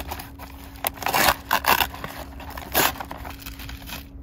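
Paper food wrapping rustling and crinkling as it is unfolded from around fried tempura, in several short irregular bursts.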